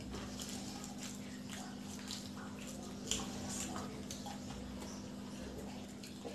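Close-up eating sounds of people chewing fried egg devils (breaded egg croquettes), with scattered short wet clicks and crunches, a louder one about three seconds in, over a steady low hum.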